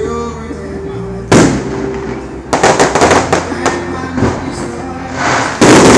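Aerial fireworks going off: a loud boom about a second in, a quick string of sharp cracks in the middle, and another loud boom near the end.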